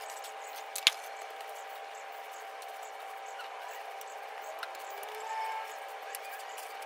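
Straw hand broom sweeping and scratching dirt off a floor, with light rustles and ticks of debris and one sharp knock about a second in, over a faint steady hum.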